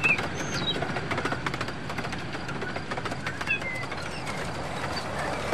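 Short bird chirps scattered over the running noise of an O-gauge model train rolling past, its wheels clicking over the track.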